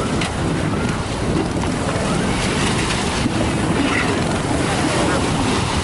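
Steady noise of a fishing boat under way at sea: wind buffeting the microphone over the rush of the sea and the boat's running.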